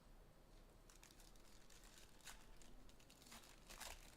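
Faint, scattered rustles and clicks of foil trading-card packs being handled and shuffled on a table.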